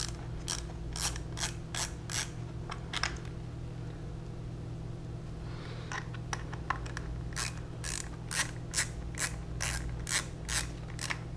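Ratcheting driver with a T25 Torx bit clicking as a screw is backed out of a plastic motorcycle fairing, a steady run of sharp clicks about two or three a second. The clicks stop for a few seconds partway through, then start again.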